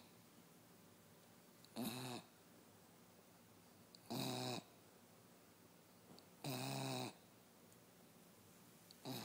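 West Highland White Terrier snoring: short, pitched snores about every two and a half seconds, evenly spaced.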